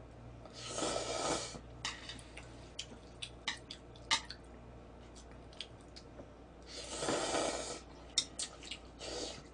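Noodles slurped from a bowl, one long slurp about a second in and another about seven seconds in, with a shorter one near the end. Between the slurps come scattered small clicks of chopsticks against the bowl and quiet chewing.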